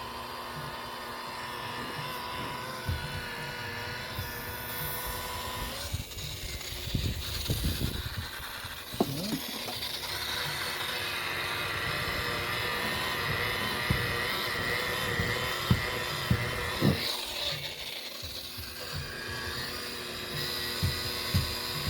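Rotary buffer with a wool pad running, working rubbing compound into a fibreglass boat's gelcoat. Its steady whine falters twice as the pad is pressed into the work, with scattered knocks and bumps.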